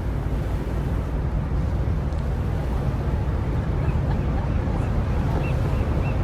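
Steady low wind rumble buffeting the microphone on a cruise ship's open deck, over the rush of the ship underway through the water.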